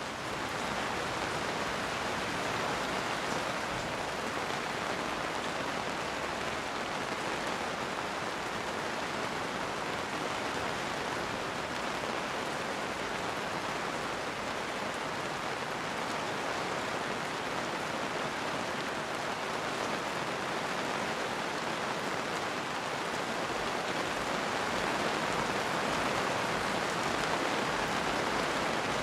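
Steady rain falling, an even hiss of many drops with no thunder, growing a little louder near the end.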